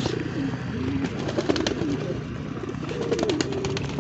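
Several domestic pigeons cooing at once, overlapping wavering coos with scattered sharp clicks among them.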